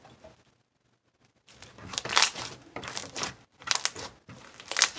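Hands squeezing and poking sticky slime mixed with foam beads, making crackly, crunchy squishing sounds in several short bursts that begin about a second and a half in.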